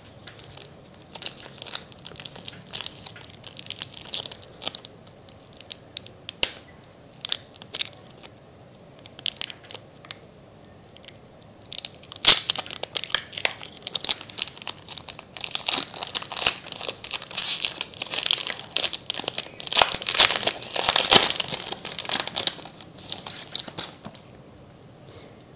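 Foil booster-pack wrapper being torn open by hand and crinkled, in many short crackling bursts. There is a sharp crack about twelve seconds in, then a long dense stretch of crinkling.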